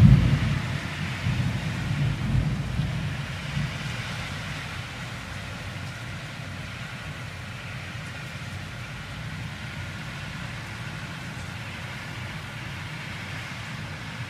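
Thunder: a loud crack right at the start that rolls and rumbles away over about four seconds, followed by the steady hiss of heavy rain.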